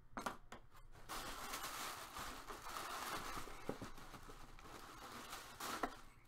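Tissue packing paper rustling and crinkling as hands pull it out of a cardboard box, with a few light knocks.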